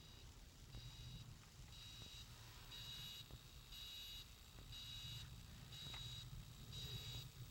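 Bosion BX-421 Android car radio giving off a faint, high-pitched beeping through its speakers while nothing is playing, about one half-second beep a second, over a low steady hum: an unwanted noise from the head unit.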